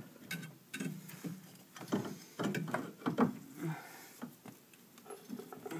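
Scattered metallic clicks and knocks as a steering knuckle with a new front hub bearing is worked back over the CV axle shaft by hand.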